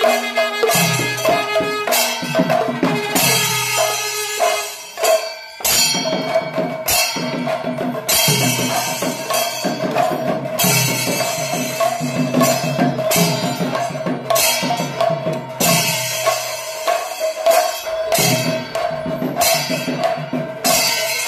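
Percussion music: drums and cymbals beating a dense, steady rhythm, with a held wind-instrument note sounding continuously over them. The ensemble briefly drops out about five seconds in.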